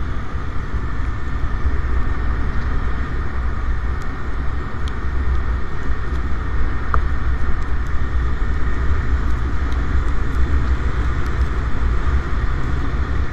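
Motorcycle riding at speed: steady wind rumble on the microphone over the engine and tyre noise.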